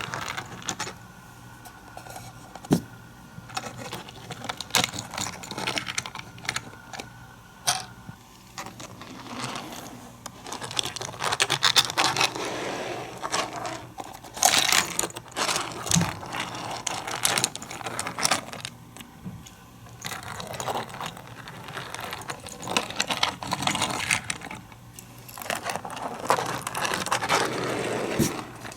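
Hands working a plastic Hot Wheels playset and its diecast cars: irregular plastic clicks and clatters, with longer stretches of rattling as cars run along the track.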